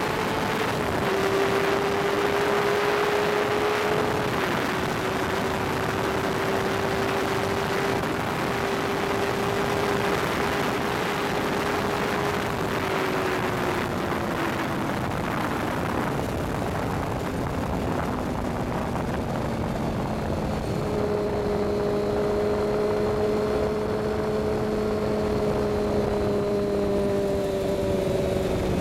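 2009 Kawasaki ZX-6R's inline-four engine running at high revs under heavy wind rush, with a gear change about a second in and another about four seconds in. The engine note then holds near top speed before the throttle is rolled off and the note falls away as the bike slows in sixth gear. The wind rush eases as it slows.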